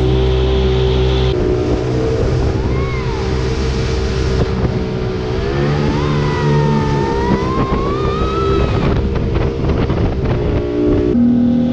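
Motorboat engine running at speed, with water rushing past the hull. A whining tone rises and falls several times as the engine note shifts, and the sound changes abruptly twice.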